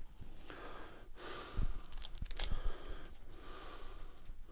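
Soft handling noise from a short HDMI cable and its metal plug being turned over in the hands, with a few light clicks, and breathing close to a clip-on microphone.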